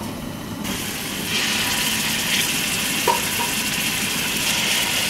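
Hot oil sizzling as beef rouladen are laid into a stainless steel pot to sear. The sizzle starts about half a second in, grows louder about a second later, then holds steady.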